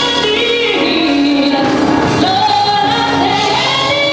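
Gospel choir singing live, holding long notes with a woman's voice prominent.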